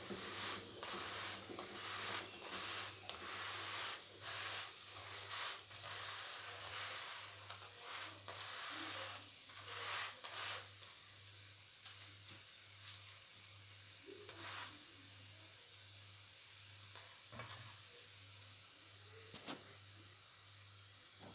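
Paratha frying in oil in a non-stick frying pan, sizzling steadily, with cooking tongs moving and pressing it around the pan in many short scrapes over the first half. After that the sizzle goes on more evenly, with a few light clicks.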